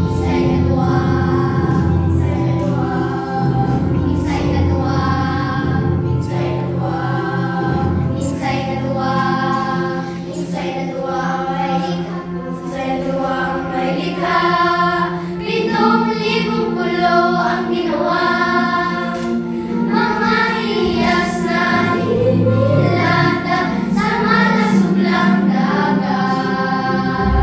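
A children's choir singing together, holding notes that change every second or so.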